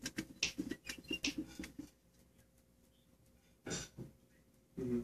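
A man's voice, low and indistinct, for about the first two seconds. Then two short breathy noises close together near the end, and a brief voiced sound right at the end.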